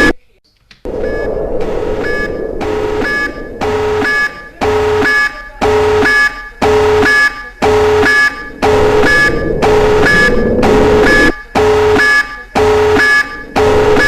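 Nuclear alert alarm sounding in even pulses, about two a second, each pulse a harsh buzzy tone. It drops out briefly right at the start, then resumes.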